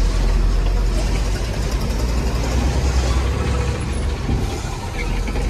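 Diesel engine of a BharatBenz truck running under way, heard inside the cab as a steady low drone with road noise.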